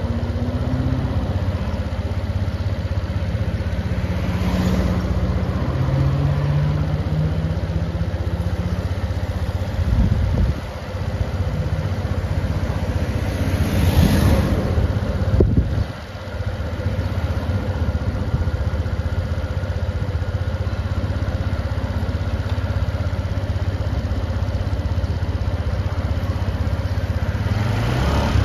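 Motor scooter engine running while being ridden, with road and wind noise. A louder rush of noise swells about halfway through, and the sound drops briefly twice.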